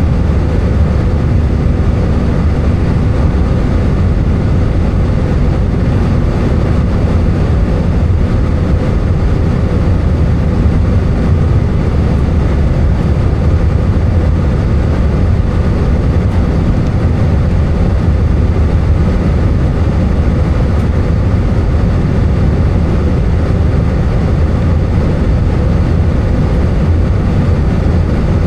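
Steady drone of an Airbus A320's jet engines and airflow heard inside the passenger cabin, deep and even, with a faint steady hum above it.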